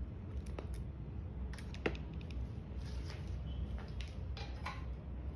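Soft rustling and scattered light clicks as the power cord of a corded hammer drill is handled and plugged in, over a low steady hum. The sharpest click comes about two seconds in. The drill motor is not running.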